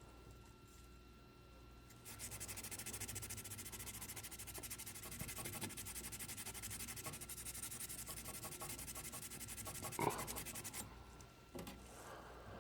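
A dirty furnace flame sensor rod being scrubbed clean with fast rubbing strokes for about nine seconds, removing the buildup behind the low flame reading and the no-heat fault. A single knock near the end.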